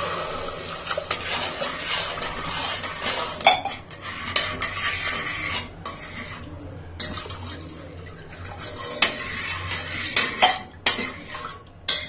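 Water poured from a steel tumbler into a steel pressure cooker over fried dal, rice and vegetables, then a steel spoon stirring the mix, knocking and clinking against the cooker's sides.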